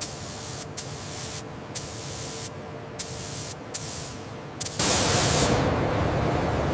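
Gravity-feed paint spray gun hissing in short bursts, the air cutting off between trigger pulls. About five seconds in, a louder, steady rushing noise takes over.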